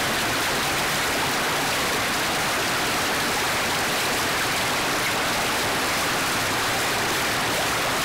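Steady splashing and trickling of water from bubbling urn fountains spilling into a garden pond.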